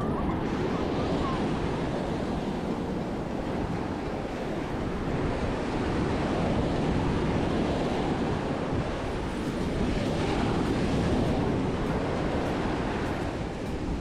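Ocean surf breaking and washing up on a sandy beach, swelling gently now and then, with wind rumbling on the microphone.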